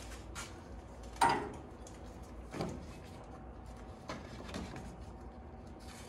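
Poster-board template being handled and pressed against the car's tube frame: a few separate knocks and rustles, the loudest about a second in.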